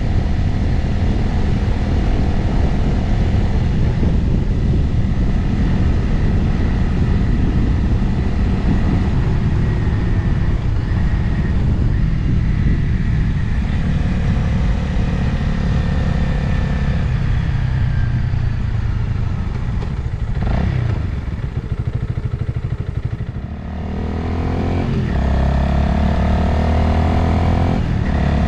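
Motorcycle engine running at road speed, with wind rushing over the microphone. About three quarters of the way through the engine eases off, then it pulls away again with its pitch rising as it accelerates.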